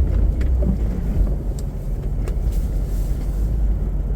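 Four-by-four vehicle driving slowly over a rough trail: a steady low engine and road rumble, with a few short knocks and rattles.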